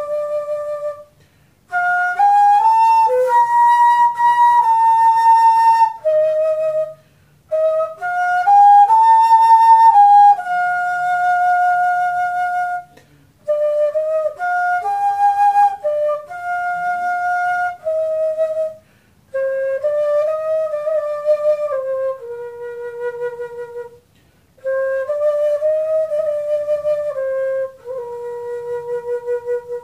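Homemade transverse flute (fife) made from 25 mm PVC pipe and tuned to F major, playing a melody in short phrases with brief pauses for breath, ending on a long held low note.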